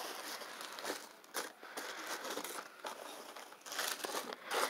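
Tissue paper rustling and crinkling as it is folded back in a cardboard box, with irregular handling noises and a louder rustle near the end.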